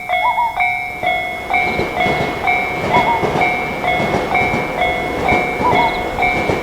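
Japanese level-crossing warning alarm ringing its electronic "kan-kan", alternating between two pitches in a steady fast rhythm, while a train passes with a rattling rumble that builds about a second and a half in.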